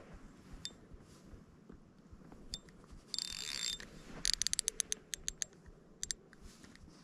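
Fishing reel drag ratcheting as a big hooked fish pulls line off against it: a short continuous buzz about three seconds in, then a quick run of about ten clicks and two more near the end.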